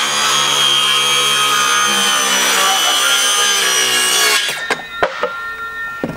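Cordless circular saw cutting through a pine deck board, its motor running at a steady whine through the cut. About four seconds in the trigger is released and the blade winds down, followed by a few sharp knocks.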